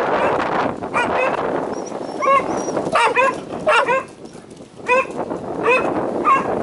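A spaniel barking in short, high-pitched barks, about ten in all and often in quick pairs, with a pause of nearly a second a little past the middle.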